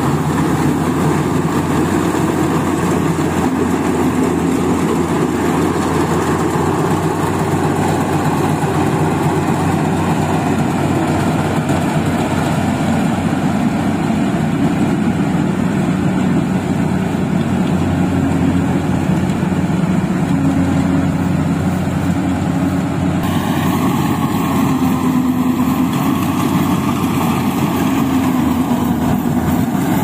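Yanmar AW70V rice combine harvester's diesel engine running steadily under load while the machine cuts and threshes rice, with a dense mechanical clatter over the engine note. The tone shifts slightly about three-quarters of the way through.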